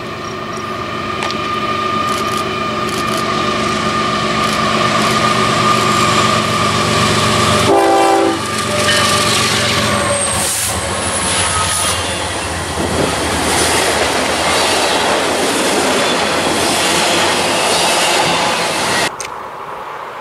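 Union Pacific diesel freight locomotives sounding a long horn blast as they approach; the horn drops in pitch as they pass beneath about 8 s in. Then the engines and a double-stack container train rolling past with a loud rush of wheel noise, which cuts off suddenly near the end.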